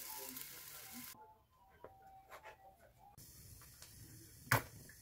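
Rolled omelette sizzling softly in a nonstick frying pan, cutting off suddenly about a second in. A low, quiet stretch with a few faint clicks follows, and one sharp knock comes near the end.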